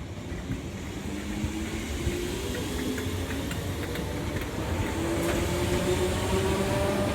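Merseyrail electric train pulling away: its traction motors whine, several tones rising steadily in pitch over the rumble of the running gear, growing louder as it gathers speed.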